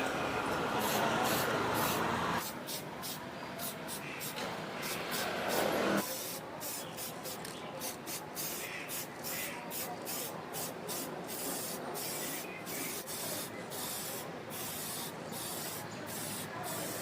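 Spray paint hissing in many short bursts as a bicycle frame is sprayed, with the sound changing abruptly a couple of times.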